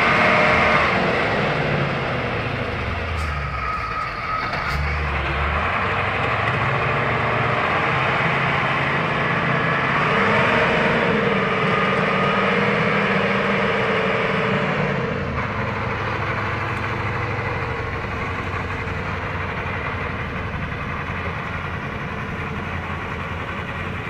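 KAMAZ six-wheel-drive logging truck's diesel engine labouring under load as the truck churns through deep mud, engine speed rising and falling. It climbs about ten seconds in and eases off a few seconds later.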